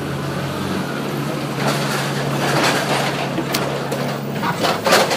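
Inside a moving New York City subway car: a steady low hum and rumble that grows louder about two seconds in, with a few sharp clacks near the end.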